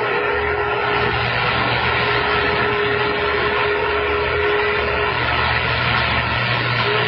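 CB radio receiver putting out steady loud static hiss over a low hum, with a steady whistle tone in it that stops about five seconds in.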